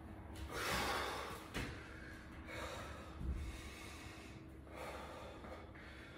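A man breathing hard from exertion, with heavy breaths about every two seconds.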